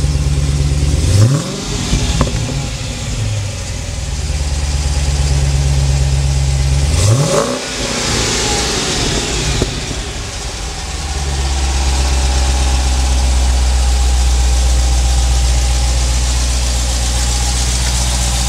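2011 Dodge Challenger SRT8 392's 6.4-litre HEMI V8 idling through its stock exhaust. It is revved twice, briefly about a second in and harder around seven seconds in, each time settling back to a steady idle.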